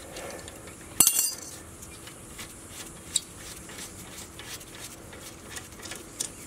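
A steel ring spanner clinks sharply against the rear brake caliper bolt about a second in, then a few faint metallic ticks as the loosened caliper bolt is worked out.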